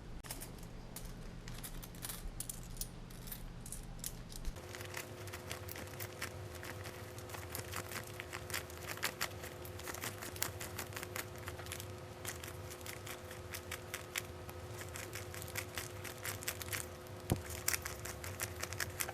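Paper money being handled and counted by hand: a faint run of rustling and quick small clicks as dollar bills are flipped, with light coin and paper handling. About four seconds in, the background changes and a faint steady hum runs underneath.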